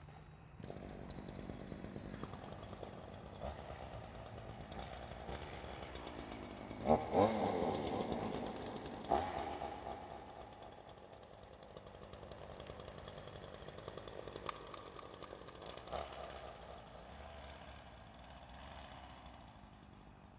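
Ryobi chainsaw running, revved hard about seven seconds in with the pitch sliding up and down, then dropping back to a steadier run, with a shorter rev near the end.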